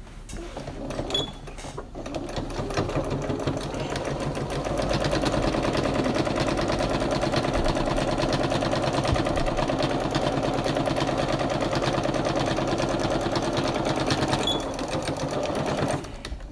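Domestic electric sewing machine stitching a straight seam along the fabric edge. It starts slowly and picks up speed over the first few seconds, runs at a steady stitching rate, then stops near the end.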